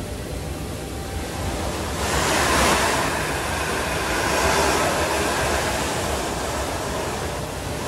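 Indoor snowboard treadmill running: a steady rushing of the moving carpet slope and its machinery, with louder swells of hiss twice as the snowboard slides and turns across the carpet.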